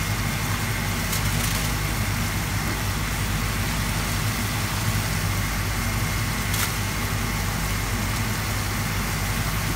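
Pan of chicken and carrot sticks simmering in broth, with a steady low mechanical hum underneath and a few faint clicks.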